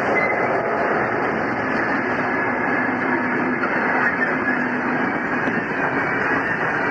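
A passenger train hauled by a 421-class diesel rolling past close by: a steady noise of carriage wheels running on the rails.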